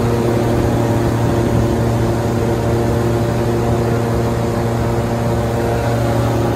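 Airboat engine and air propeller running at a steady cruising speed: a loud, even drone that holds one pitch.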